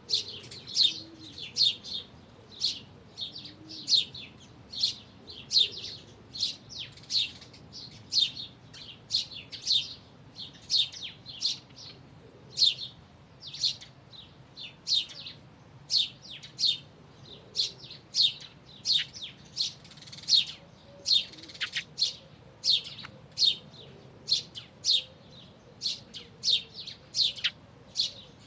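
Songbird chirping: short, high chirps repeated in quick succession, about two a second, with no break.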